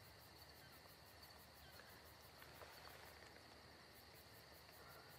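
Faint, steady insect chirring that pulses about six times a second over a held high tone, with a small tick now and then.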